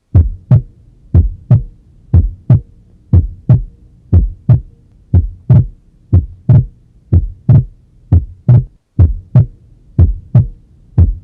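Recorded heartbeat: paired 'lub-dub' thumps, the first and second heart sounds (S1 and S2), about one beat a second, steady and regular for eleven beats.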